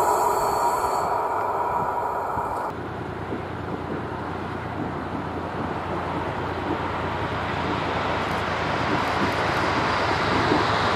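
The noise of a train that has just gone by, fading away, then an abrupt change to a PKP EP07 electric locomotive hauling a string of passenger coaches as it approaches and passes. Its rail noise grows steadily louder toward the end.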